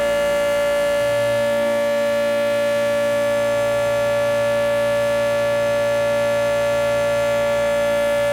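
Federal Signal 2T22 dual-tone outdoor warning siren sounding at full speed during a test, a loud, steady chord with no rise or fall in pitch. It is recorded from very close, so the audio is overblown.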